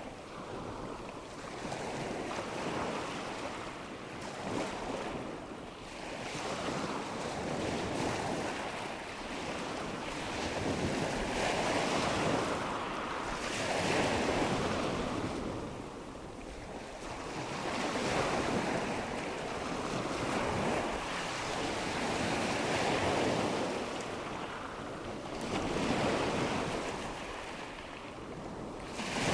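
Ocean surf: waves breaking and washing ashore in a steady hiss that swells and fades every few seconds.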